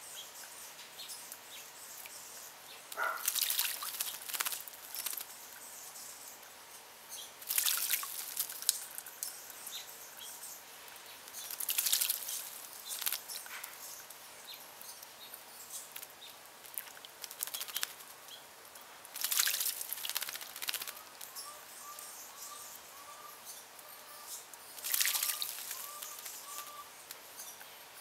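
A small bird splashing in a bird bath, five short bursts of flicking water a few seconds apart. In the second half a bird calls faintly in the background with a quick series of short repeated notes.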